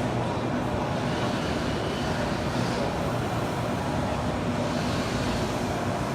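Steady background din of a large machine-tool exhibition hall, with a few faint steady machine tones in it.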